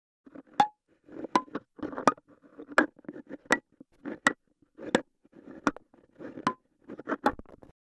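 A 3D-printed Lamello dial being turned by hand, its comb tines struck one after another: about ten sharp plastic clicks, roughly one every 0.7 s, several with a brief ring whose pitch differs with the tine's size, and softer rustling between them. The sound is first picked up by the camera microphone and, partway through, by a contact microphone clipped to the dial.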